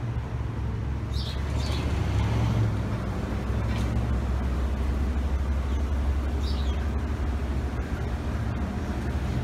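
Steady low motor hum, like traffic or an engine running nearby, with a bird chirping a few times over it.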